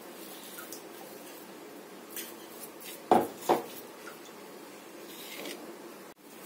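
A silicone spatula scraping ground stuffing out of a steel mixer-grinder jar and onto a plate, with two sharp knocks about three seconds in, half a second apart.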